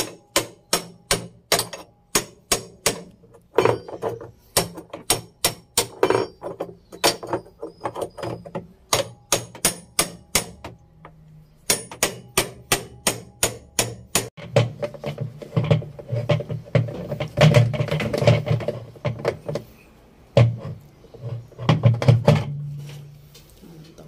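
Claw hammer striking a steel spanner wrench over and over, tightening the drum nut of an LG top-load washing machine clockwise. The sharp metallic strikes come at about three a second, pause briefly just before the middle, then go on.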